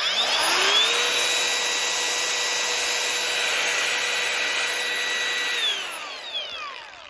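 Senix brushless 5-inch angle grinder switched on and run with no load: its whine rises to speed within about a second, holds steady for about five seconds, then falls away as the motor coasts down after switch-off.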